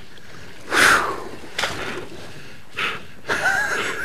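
A man breathing hard from exertion: a loud gasp about a second in, a few shorter breaths, then a short wavering vocal strain near the end.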